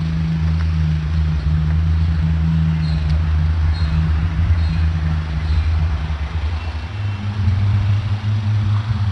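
A loud, low, unexplained droning groan like a deep horn, held steady and stepping slightly higher in pitch about seven seconds in. Onlookers take it to be coming from the sky, up in the clouds.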